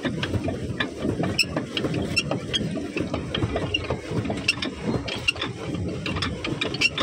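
Pedal boat's crank and paddle-drive gearing clicking and rattling steadily as it is pedalled, with many small irregular clicks over a continuous low clatter.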